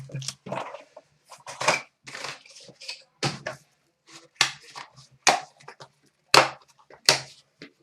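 Opening a trading card box and pack by hand: a series of separate crinkles, rips and crackles of wrapper and cardboard, with short pauses between them.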